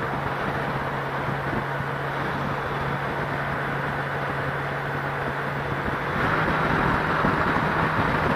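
Motorcycle running at a steady low hum with road noise. About six seconds in, wind rush on the helmet microphone builds as the bike picks up speed.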